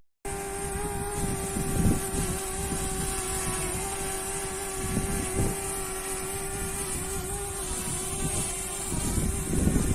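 DJI Mavic Mini's propellers giving a steady high whine while hovering, with gusts of strong wind buffeting the microphone underneath.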